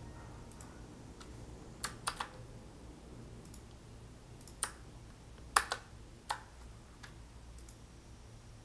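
Irregular clicks and key taps at a computer keyboard and mouse, about a dozen in all, the loudest a quick pair about five and a half seconds in, over a faint steady hum.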